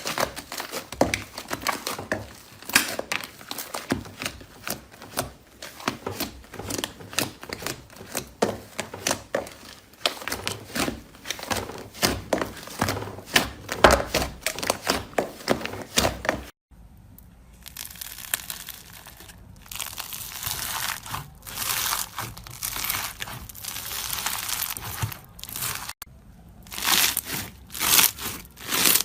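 Slime being squeezed, stretched and poked by hand, giving dense crinkly crackles and sharp pops. The sound cuts off abruptly about halfway and again near the end, each time giving way to a different crackling texture.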